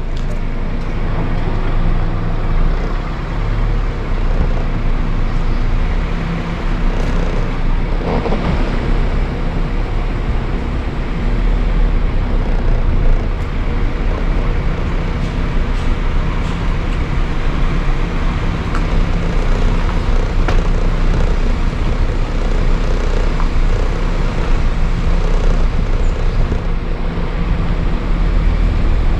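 A motor running steadily, a low even hum that holds unchanged throughout.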